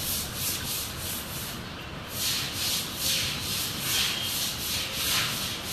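Rustling, rubbing hiss that swells and fades in irregular pulses a few times a second.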